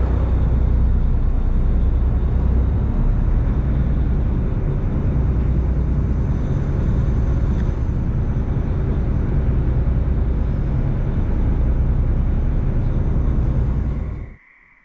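Loud, steady low engine drone mixed with wind noise, as heard on the deck of a moving boat, cutting off suddenly near the end.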